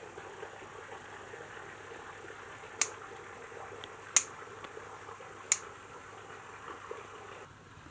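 Scissors snipping through plant stems: three sharp snips, about a second and a half apart, over a steady background hiss.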